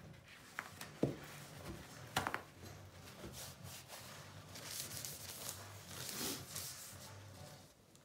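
Faint handling noises: a few light clicks and taps in the first two and a half seconds, then soft rustling swells over a low hum.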